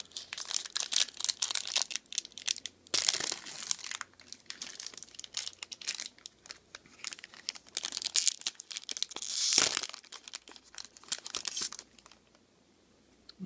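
Foil trading-card pack wrapper crinkling and tearing as it is opened by hand: a dense run of sharp crackles, with one louder rip late on.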